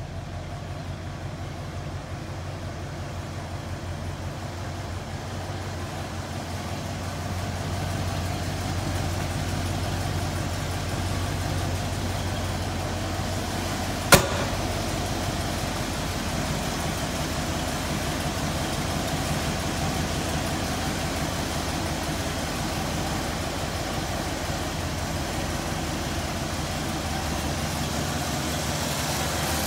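1985 Ford Bronco engine idling steadily, growing louder partway through. A single sharp knock sounds about halfway through.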